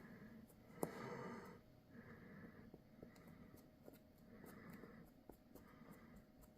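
Faint, regular breathing close to the microphone, a soft puff about every second, with a sharp tick about a second in and a few fainter ticks from small handling.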